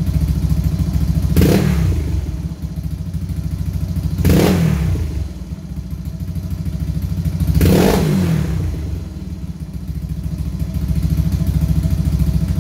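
Kawasaki Fury two-stroke underbone engine idling on a BRT Hyperband dual-band racing CDI. It is blipped three times, each rev rising quickly and falling back to idle.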